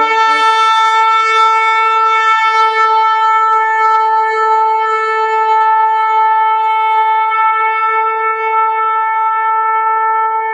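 Shofar blown in one long, loud blast held at a single steady pitch.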